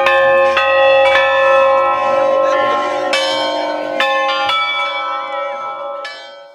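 Bells of different pitches struck one after another, a new stroke every second or so, each ringing on over the lingering hum of the earlier ones; the sound fades away at the end.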